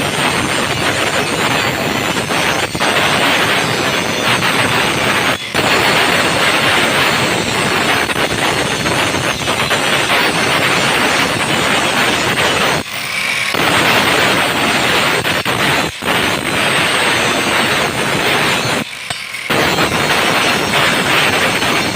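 A power tool working steel, running loudly and continuously, with brief breaks where it comes off the metal about five, thirteen and nineteen seconds in.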